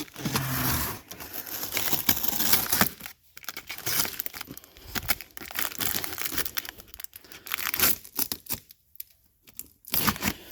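Cardboard box and packing tape being torn and pulled open: irregular tearing, crackling and scraping, with short pauses about three seconds in and near the end.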